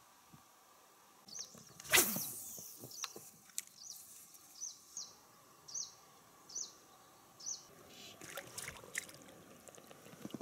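A sudden swish, the cast of a spinning rod, about two seconds in, fading over a second. It is followed by a bird repeating a short high chirp about every three-quarters of a second, with a few light clicks near the end.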